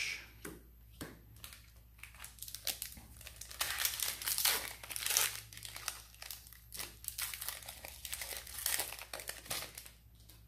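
Modern Horizons 2 collector booster pack being opened, its wrapper tearing and crinkling in a dense run of sharp crackles that lasts several seconds and eases off near the end.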